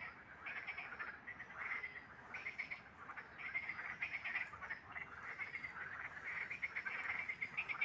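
Frogs calling in chorus: many overlapping short, rattling croaks, repeating about every half second.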